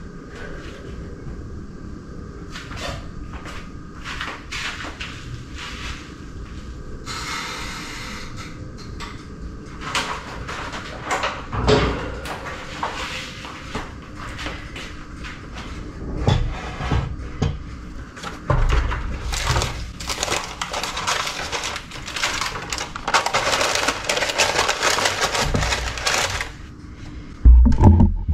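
Wooden spoon working thick banana bread batter in a glass bowl: wet scraping and stirring with scattered light taps, busiest in the second half. A sharp thump near the end.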